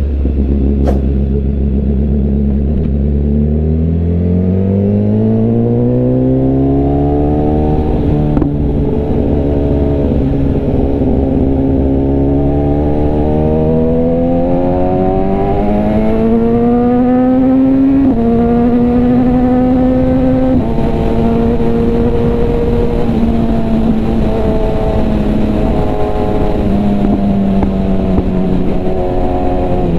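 BMW S1000RR inline-four engine and exhaust heard from the rider's seat: idling low for a few seconds, then pulling away with the pitch rising steadily to an upshift about eight seconds in, climbing again to another shift around eighteen seconds, then cruising at fairly steady revs with small changes.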